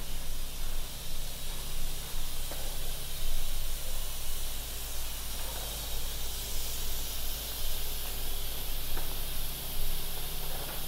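Steady high hiss of open-air street ambience, with a low hum beneath and a few faint ticks a few seconds apart.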